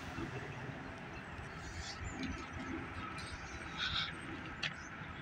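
Faint outdoor background noise with a few short bird chirps about four seconds in.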